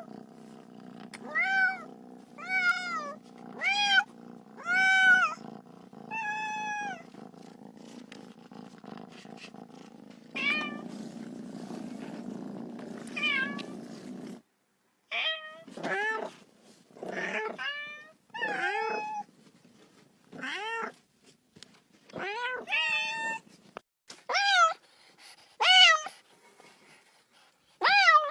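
Domestic cat meowing over and over, about twenty short rising-and-falling meows, coming faster in the second half. A low steady hum lies under the first half and cuts off suddenly about halfway through.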